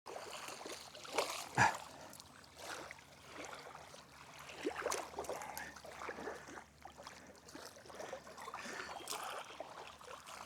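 Faint water lapping and trickling with small splashes and handling noises, and a couple of sharp knocks about a second and a half in.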